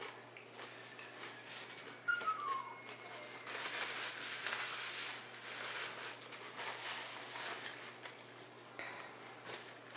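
Close-up eating noise: crunching nachos and rustling handling of the food, denser in the middle. About two seconds in, a short whistle-like tone falls in pitch in small steps.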